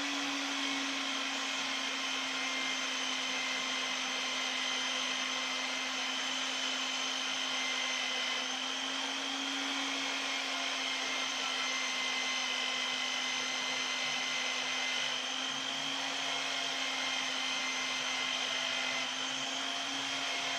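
Steady whir of a small electric motor running at constant speed: an even hum with a hiss over it, unchanging throughout.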